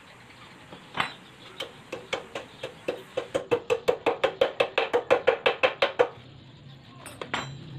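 Hammer blows on metal, tapping a new knuckle (steering-head) bearing race into a motorcycle's steering head. One strike comes first, then a quickening run of about twenty ringing taps at four or five a second, and two more taps near the end.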